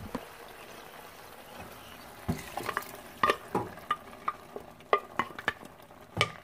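A hot pot of browned pork and potatoes sizzling as blended green chile sauce and chicken broth are poured in. Quiet at first, then irregular sharp pops and crackles from about two seconds in.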